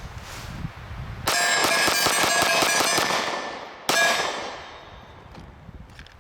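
Spent brass pistol casings jangling and clinking together for about two seconds, with a bright metallic ring, then one sharp clink near the middle that rings out and fades.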